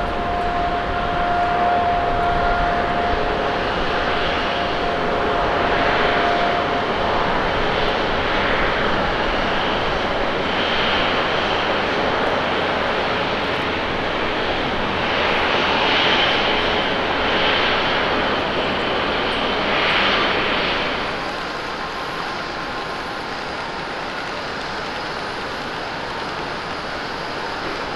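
ANA Boeing 767-300ER jet engines through touchdown and landing roll: a loud, steady jet noise that swells and fades several times. About 21 seconds in it gives way to a quieter, steady jet sound from a Skymark Boeing 737-800 waiting to take off.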